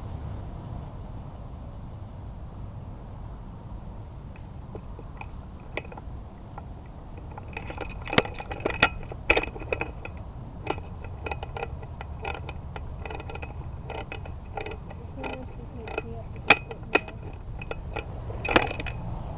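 Irregular sharp clicks and light rattling, growing frequent about halfway through, over a low rumble.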